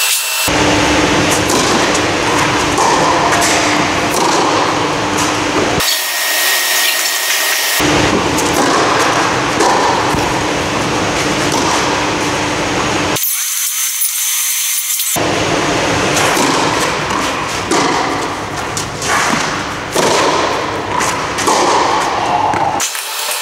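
Tennis balls struck by rackets during a rally on an indoor clay court, as sharp hits over a loud, steady rushing noise.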